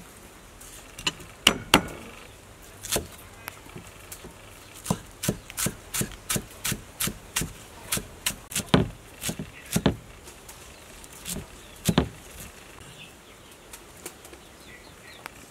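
Cleaver chopping spring onions on a wooden chopping board: a run of sharp knocks, about three a second at its steadiest, with a few heavier strikes. The chopping stops near the end.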